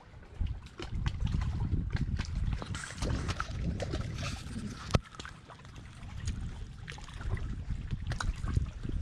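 Handling noise as the camera is picked up and moved: uneven rumbling and rustling with scattered clicks, and a sharp knock about five seconds in.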